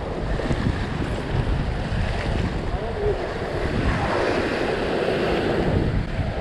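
Ocean swell surging and washing over a rock ledge, with wind buffeting the microphone; a bigger wave sweeps over the rock about four seconds in.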